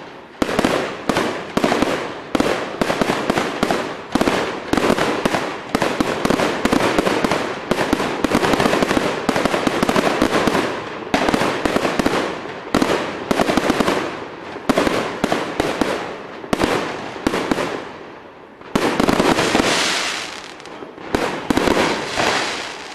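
Fireworks going off in a rapid barrage, many bangs and crackles a second running into one another. There is a short lull about eighteen seconds in, a fresh loud burst, and the sound dies away at the end.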